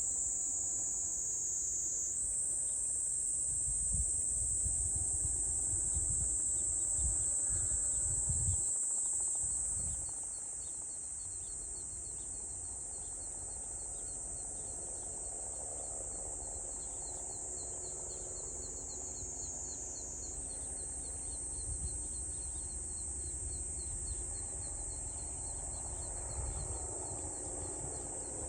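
Insects buzzing in a steady, high-pitched chorus, with a second insect pulsing rapidly at a lower pitch. A low rumble under it eases off about ten seconds in.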